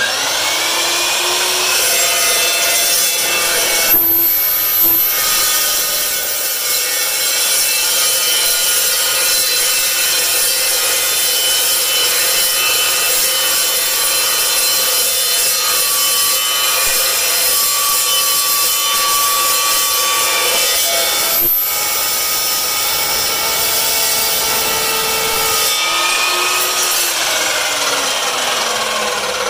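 Evolution EVOSAW380 15-inch dry-cut metal chop saw, with its 1800-watt geared motor and steel-cutting blade, spinning up and cutting through 2-inch-square, quarter-inch-wall steel tubing in one long, steady cut. The motor winds down near the end once the cut is through.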